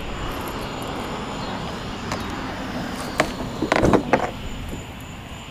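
Wind buffeting the microphone, a steady low rumble, with a brief cluster of knocks against the plastic kayak hull and paddle about four seconds in.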